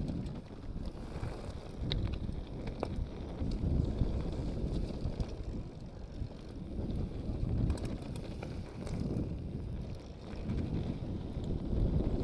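Mountain bike riding fast down a rocky, loose trail: heavy wind rumble on the microphone, which swells and dips, over the tyres crunching on stones, with a few sharp clicks and rattles from the bike.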